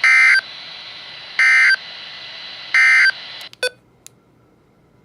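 Three short bursts of EAS SAME digital data tones about 1.4 seconds apart, the end-of-message code that closes a flash flood warning broadcast, over steady weather-radio hiss. The hiss then cuts off with a few sharp clicks.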